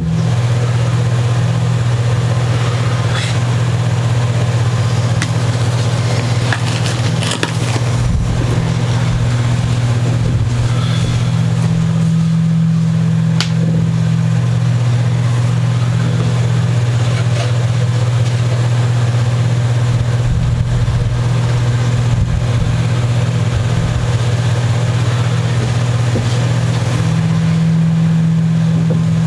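A loud, steady low hum, with scattered clicks and knocks of handling on top.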